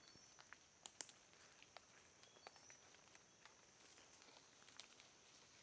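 Near silence of forest ambience: a faint steady high hiss with a few short bird chirps, and scattered soft crackles of footsteps on dry leaf litter, the clearest about a second in and near the end.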